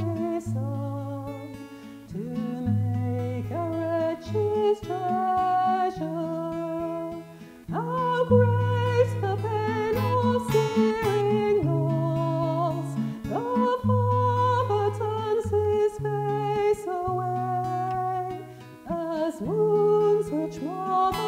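A woman singing a song while playing an acoustic guitar, phrase after phrase with short breaths between.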